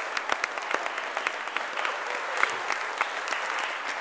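Applause: many hands clapping at once in a dense, steady patter, with a few louder claps standing out close by.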